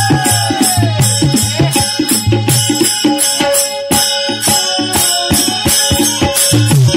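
Devotional bhajan music: a drum with bending bass strokes and small hand cymbals keep a fast, steady rhythm. A held note fades away with a falling glide about half a second in.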